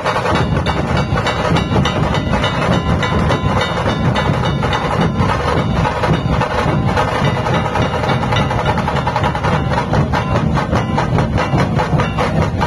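A marching troupe of large barrel dhol drums beaten with sticks, many drummers playing together in a fast, even rhythm.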